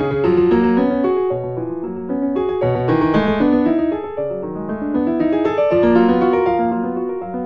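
Background piano music: a steady flow of single notes and chords.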